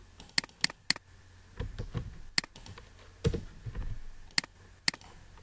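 Separate clicks of a computer keyboard and mouse, about seven sharp clicks spaced irregularly, with a few dull low knocks among them.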